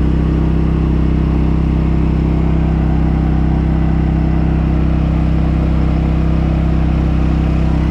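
Champion 201407 inverter generator's engine running steadily at full load, heard from right beside it: a constant, pretty noisy drone that holds one pitch throughout.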